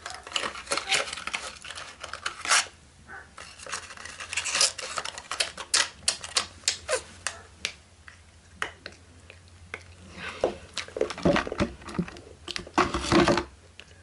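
Small hard objects being handled close to the microphone: an irregular run of sharp clicks and taps.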